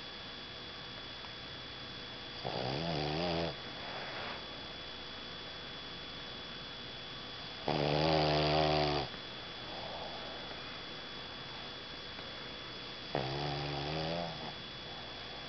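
Boston Terrier snoring in her sleep: three snores about a second long and about five seconds apart, the middle one the loudest, each followed by a softer breath out.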